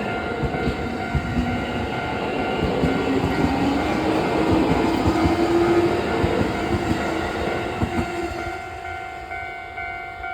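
Train passing over a level crossing: wheels clacking over the rail joints and a whine rising in pitch, loudest about five to six seconds in and then fading. The crossing's warning bell rings throughout.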